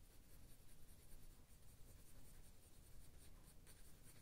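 Faint scratching of a soft-core colored pencil shading lightly on paper.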